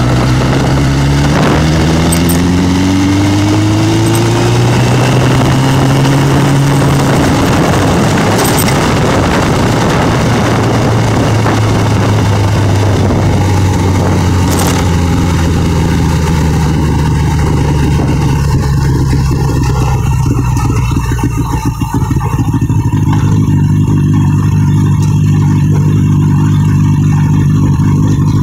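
Motorcycle engine accelerating. Its pitch climbs several times in the first few seconds, then holds steady while cruising, with heavy wind rushing over the microphone.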